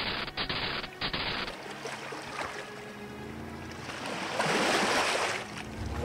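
Cartoon sound effects: four short hissing bursts in quick succession, then a loud rushing whoosh that swells and fades about four to five and a half seconds in.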